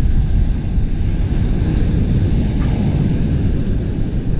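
Wind buffeting the microphone in a steady low rumble, with surf breaking on the shore.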